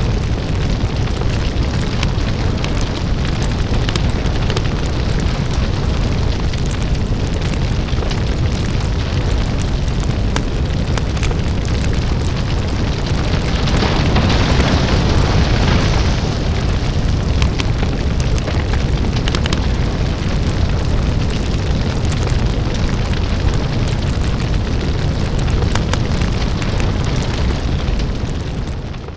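A house fire burning: a deep, steady rumble with dense crackling throughout. About halfway through it swells louder and hissier for a few seconds, then settles back.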